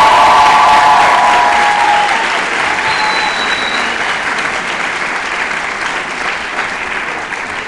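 A large audience applauding, with voices cheering loudly near the start; the applause slowly dies down.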